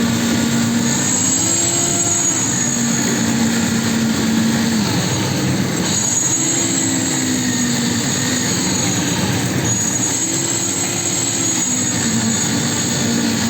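A machine's motor running steadily, its hum stepping up and down in pitch every few seconds.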